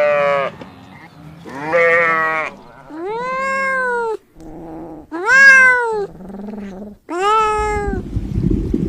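Cat meowing repeatedly: about five drawn-out meows, each rising then falling in pitch.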